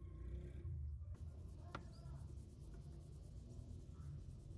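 Stiff brush scrubbing softened, blistered paint off a die-cast metal model car body, a faint scratchy rubbing, with a single sharp click about two seconds in.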